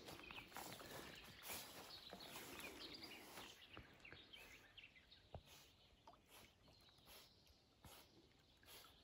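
Near silence: faint outdoor ambience, with faint chirps in the first few seconds.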